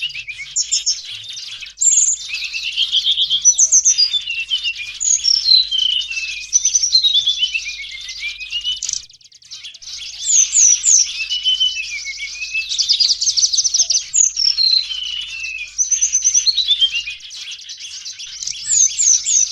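A dense chorus of flowerpeckers and other small birds chattering: high, rapid chips, trills and down-slurred notes overlapping almost without pause, with a brief lull about nine seconds in. This noisy mixed-flock calling is what is played to lure small birds.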